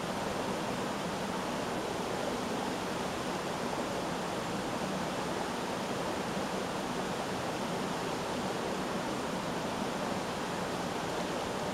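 Steady rush of running water over rocks, an even hiss with no pauses or changes.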